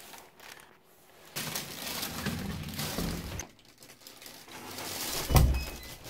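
Front door and inner glass-panelled door being opened and passed through: handling and rustling noise, with one heavy thump about five seconds in.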